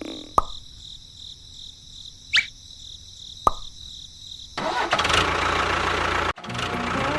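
A few sharp clicks, then an engine-like running noise starts a little past halfway and keeps going.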